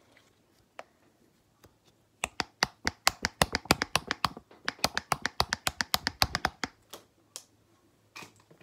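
Fast tapping with the fingers on a small white object, about eight sharp taps a second for some four seconds, starting about two seconds in.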